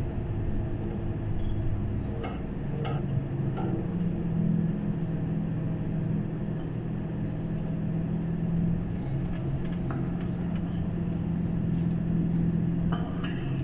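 Steady low hum of a tour coach's engine and road noise, heard from inside the coach, with a few faint clicks.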